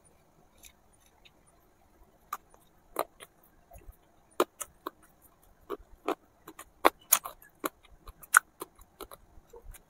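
Eating sounds: irregular small clicks and taps of a tiny spoon and miniature clay dish, mixed with chewing, starting about two seconds in.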